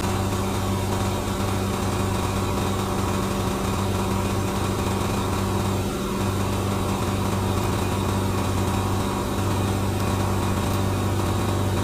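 Steady, even hum of a small electric motor running: a low drone with fainter higher tones over it, unchanging throughout.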